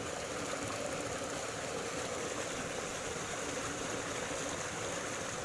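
Steady rush of flowing stream water, with a faint steady hum underneath.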